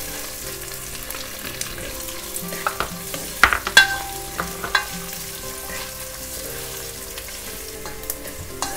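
Chopped onions sizzling as they fry in hot oil in a ceramic-coated pot, stirred with a spatula. A few sharp knocks of the spatula against the pot stand out, the loudest about three and a half to four seconds in.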